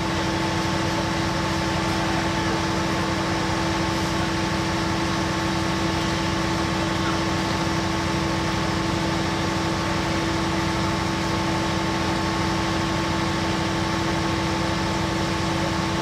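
Diesel engine of a standing passenger train idling: a steady hum with a constant whine on top, unchanging throughout.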